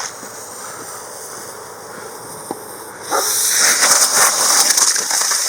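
A lit ground firework hisses faintly for about three seconds. Then it starts spraying with a loud, steady, high hiss and fine crackling.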